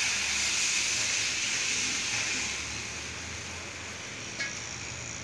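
Tamarind water poured from a steel pot into a hot kadai of fried tomato masala: a steady splashing hiss that dies away about halfway through as the pour ends.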